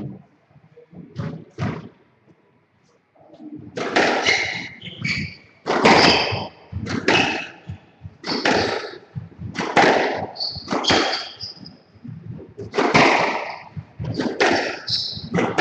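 Squash ball being struck in a rally: sharp cracks off the rackets and walls about once a second, echoing around the enclosed court, starting about four seconds in after a couple of soft knocks. Short high squeaks of players' shoes on the wooden court floor come between the hits.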